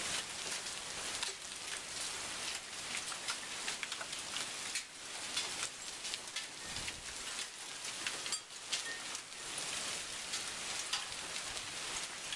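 Heavy thunderstorm rain pouring down: a steady dense hiss full of sharp ticks from drops striking nearby surfaces.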